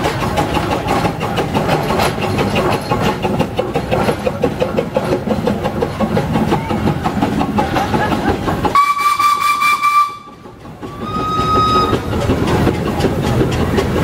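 Steam traction engine running as it passes close by; about nine seconds in its steam whistle sounds a steady note for about a second, then blows again a second later, slightly higher and shorter.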